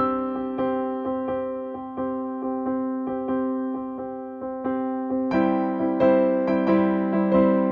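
Background piano music: single keyboard notes struck one after another in a gentle melody, growing fuller and a little louder about five seconds in.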